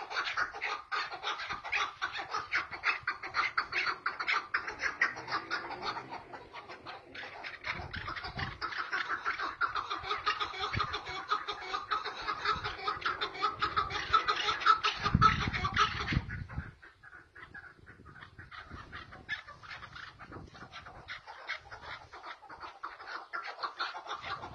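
Caged chukar partridges calling back and forth in a calling duel, a fast, dense run of repeated chuck notes. The calling drops off sharply about two-thirds of the way through, just after a brief low rumble, then resumes more faintly.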